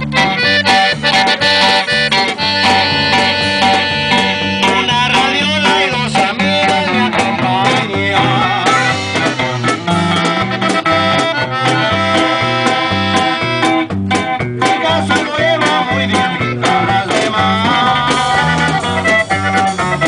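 Live norteño band playing, with the button accordion out front over a twelve-string bajo sexto, electric bass and drums. The bass steps between notes in an even beat.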